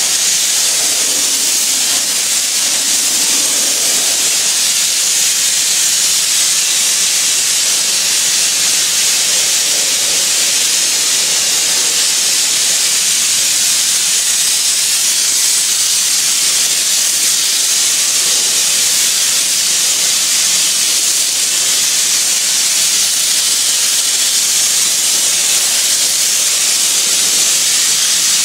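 Oxy-acetylene powder flame spray gun burning and spraying, giving a loud, even hiss that holds steady throughout.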